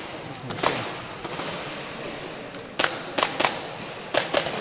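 Airsoft pistol firing six sharp shots: one about half a second in, a quick string of three around three seconds in, and a pair near the end.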